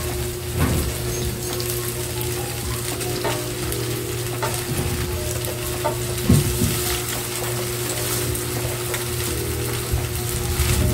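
Diced ham, egg and carrots sizzling steadily in a metal wok, over a steady low hum. A few light knocks and a short scrape come from a metal pot as cooked rice is tipped into the wok.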